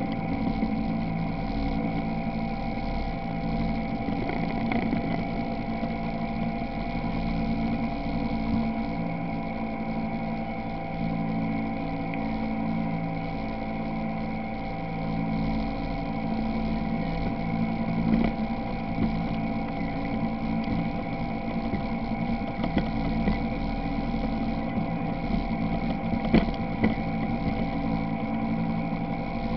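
ATV engine running steadily at a constant pace through shallow floodwater, with water splashing and churning around the wheels.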